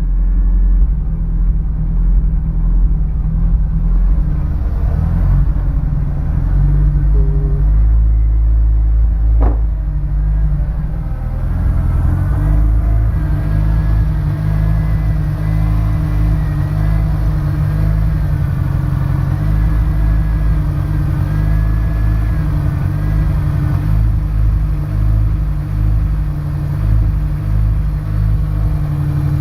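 Honda S2000's four-cylinder engine idling, heard close up in the open engine bay, with an uneven low pulse; the car has a misfire that new spark plugs have not cured. A single sharp click sounds about a third of the way in.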